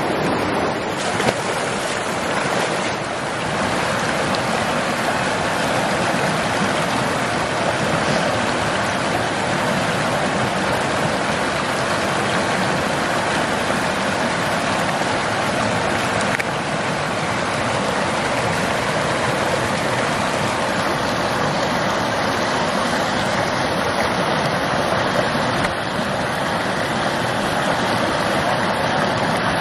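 Small rocky trout stream rushing over a shallow riffle: a steady wash of running water.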